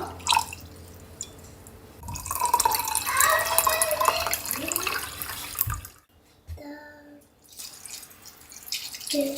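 Water running from a kitchen tap and splashing into a sink, from about two seconds in until nearly six seconds, then quieter drips and small clinks.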